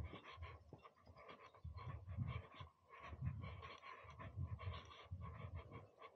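Wind buffeting the microphone in uneven low gusts, with soft rustling footsteps through grass.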